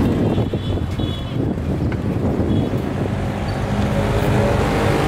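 A motor vehicle's engine running close by over general street noise, its steady hum growing clearer in the second half.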